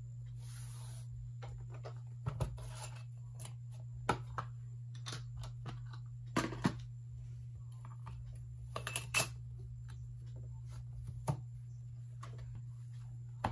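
Stationery handled and set down on a wooden desk: a plastic pencil case, notebook and steel ruler giving a handful of scattered taps and clacks over a steady low hum.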